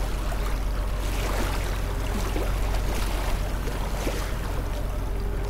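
Steady wash of sea waves and surf, with a low steady hum underneath.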